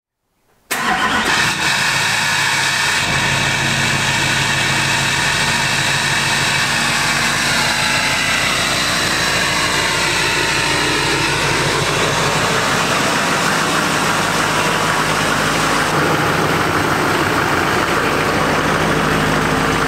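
LMM Duramax 6.6-litre diesel V8 of a Chevrolet Silverado idling steadily. A high whine rides over it and dips in pitch about halfway through.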